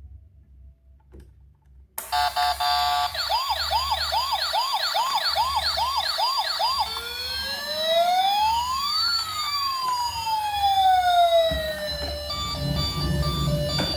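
Electronic toy siren starting about two seconds in, loud. First a few short beeps, then a fast yelp repeating about three times a second, then long wails gliding up and down over one another, and near the end a run of steady beeps.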